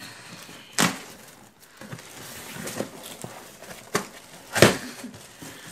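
Cardboard box and boxed action-figure packaging being handled and pulled out: a run of rustles with several sharp knocks, the loudest a little after four and a half seconds.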